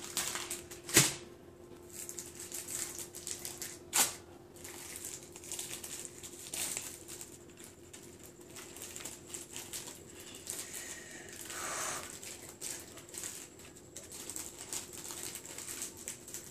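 Soft handling noise of bread slices and cheese being flipped and stacked on a paper plate, with two sharp knocks, about a second in and about four seconds in, and a faint steady hum underneath.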